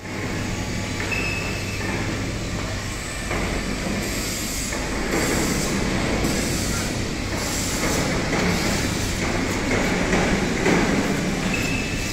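Factory workshop machinery noise: a steady low hum under a rumbling, rattling mechanical noise that swells and fades.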